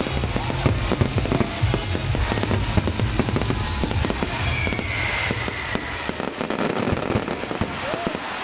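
Aerial fireworks display: dense, continuous crackling and banging of many shells bursting at once, with a short falling whistle about halfway through.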